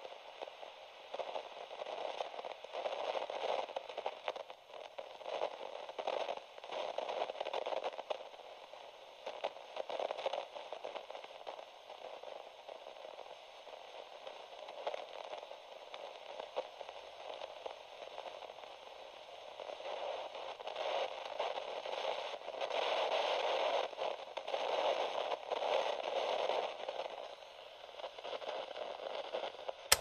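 Radio static: a crackling, hissy noise with a thin, band-limited tone. It swells and fades irregularly and is loudest about two-thirds of the way through.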